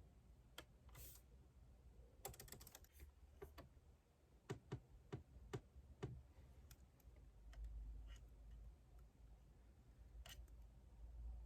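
Faint typing on a computer keyboard: a quick run of keystrokes, then a handful of single, separate key strikes.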